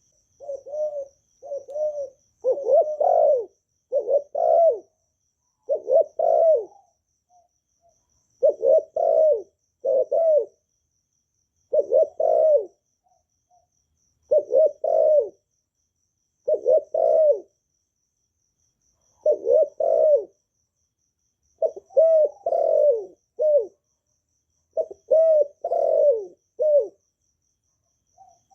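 Spotted dove cooing: short phrases of two to three low coos, repeated over and over with brief pauses between them.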